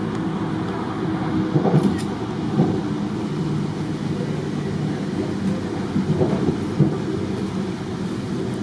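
Passenger train running, a steady low rumble with a low hum, as heard from inside the carriage.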